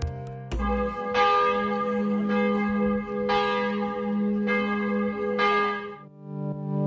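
Church bells ringing: about six strikes roughly a second apart, each ringing on with rich overtones, stopping about six seconds in.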